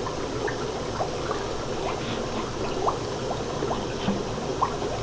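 Aquarium water bubbling steadily, with scattered small plinks and trickles as a plastic cup of acclimation water is tipped into the fish tank.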